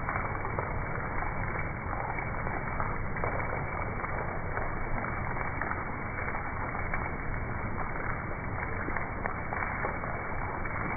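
Heavy rain pouring down and splashing onto a flooded street, a steady dense patter of drops hitting water.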